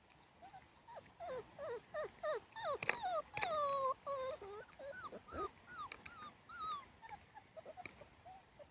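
Puppies whimpering and whining: a quick string of short, high cries that mostly fall in pitch, with one longer drawn-out cry near the middle.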